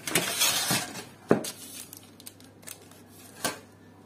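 Kitchen handling noises: about a second of crackling rustle, then two sharp clinks of dishes or utensils with a few lighter ticks between.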